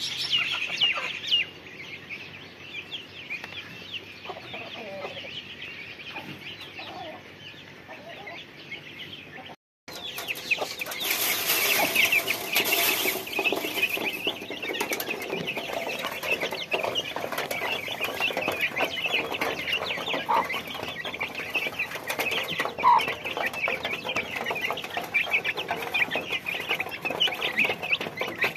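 A flock of young chickens peeping as they feed: a dense, busy run of short high cheeps. The sound drops out briefly about a third of the way in, with similar high chirping before the break.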